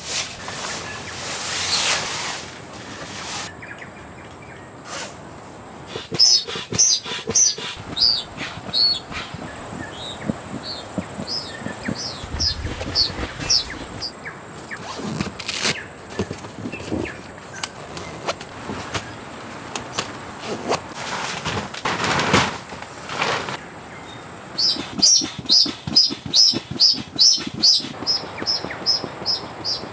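A songbird calling in runs of short, quick, high chirps, one run a few seconds in and another near the end, with scattered knocks and rustles between them.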